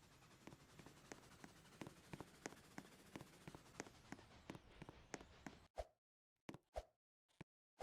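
Near silence: faint ticks about three times a second over a low hiss. About six seconds in it cuts to dead silence, broken by a few soft knocks.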